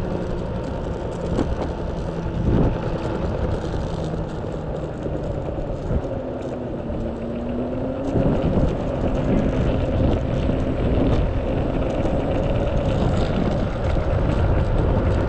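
Mototec 600 W single belt-drive electric skateboard, ridden as a sit-down scooter: a steady electric motor and belt whine over the rumble of its wheels on rough asphalt, with wind on the microphone. The whine rises in pitch a few seconds in as it picks up speed, and there are two knocks in the first few seconds.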